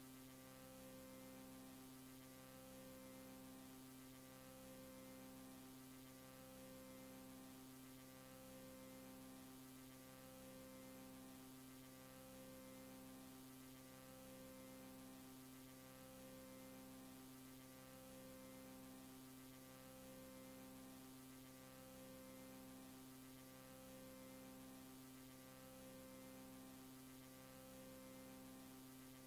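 Near silence: a faint steady electrical hum, with a low tone that pulses on and off about every two seconds.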